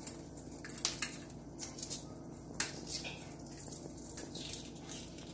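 Hard-boiled egg being peeled by hand, its cracked shell crackling and coming away easily in small irregular clicks, over a faint steady hum.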